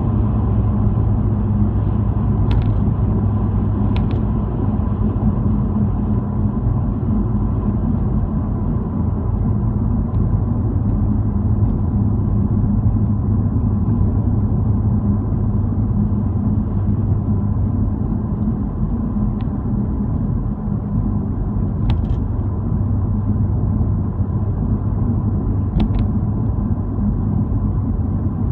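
Car driving at steady speed, heard from inside the cabin: a constant low rumble of engine and tyre road noise, with a few faint sharp clicks scattered through it.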